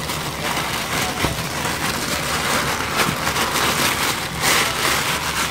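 Tissue paper rustling and crinkling as hands unwrap it from a pair of sneakers in a cardboard shoebox, getting louder about halfway through and again near the end.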